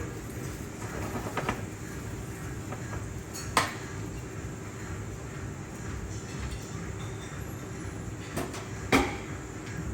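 Steady low background rumble with a few sharp clinks or knocks, the loudest about three and a half seconds in and again near the end.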